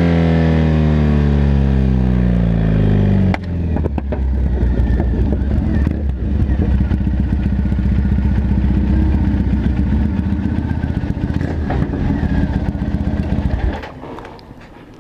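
Triumph Bonneville parallel-twin engine running very loud through aftermarket pipes with the dB-killer baffles removed. Its note falls steadily for about three seconds, changes abruptly, then runs on rough and steady until it drops away much quieter near the end.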